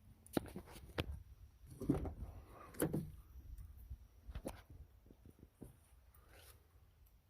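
A series of irregular knocks and clunks, with a run of lighter clicks about five seconds in.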